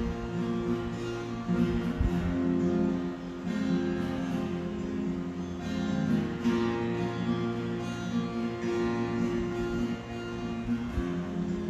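Instrumental music of sustained notes that change every second or so, with no singing.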